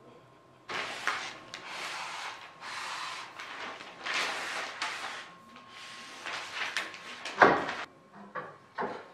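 Self-adhesive contact paper being peeled from its backing and pressed onto aluminium sheet: a run of hissing, ripping strokes. Near the end comes one sharp knock, the loudest sound, then a few lighter clicks.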